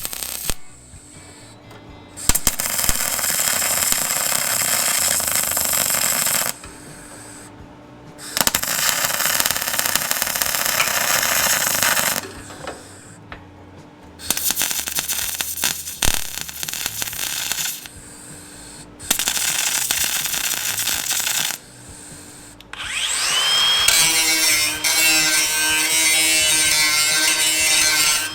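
Power tools working on car body sheet metal: four bursts of a few seconds each with short pauses between, then a tool spinning up with a rising whine about 23 seconds in and running on steadily.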